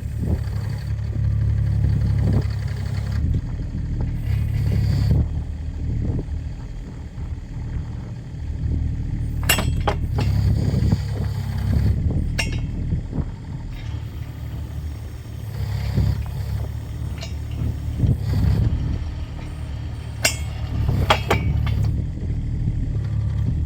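Kubota mini excavator's diesel engine running steadily, with a few sharp metallic knocks and clinks from the machine and its auger attachment.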